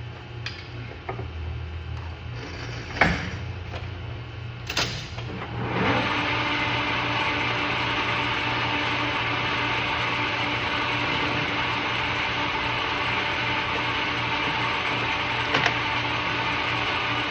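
Metal lathe running with a steady low hum and two sharp knocks in the first five seconds. About six seconds in, a louder, even cutting noise sets in and holds steady as the boring bar cuts the inside diameter of a steel sleeve driver.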